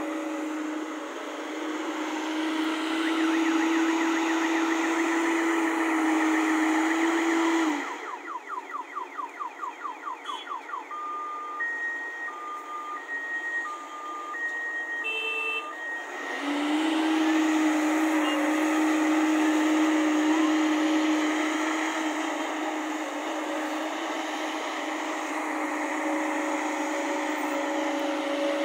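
JCB tracked excavator running under work with a steady engine tone. About eight seconds in it drops away for a stretch of rapid clicking and then an alternating two-tone beeping alarm, and the steady machine sound comes back about sixteen seconds in.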